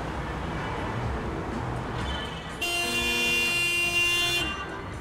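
Street traffic rumbling, then a vehicle horn honks once, held steady for nearly two seconds, a little past halfway through.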